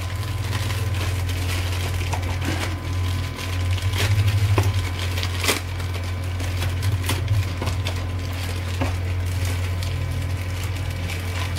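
Clear plastic bags crinkling and plastic model-kit sprues clicking against each other as the parts are handled, with one sharper click about five and a half seconds in. A steady low hum runs underneath.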